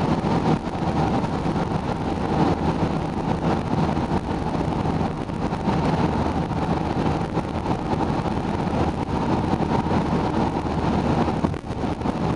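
Steady tyre, wind and engine noise of a car cruising at motorway speed, heard from inside the cabin. The noise is strongest in the low range and dips briefly near the end.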